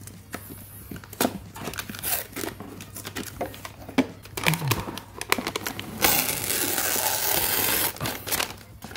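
Protective masking paper on a clear acrylic display-rack panel being picked at and peeled off by hand: scattered crinkles and clicks as the sheet is handled, then a steady tearing hiss about six seconds in that lasts about two seconds as a stretch of the film comes away.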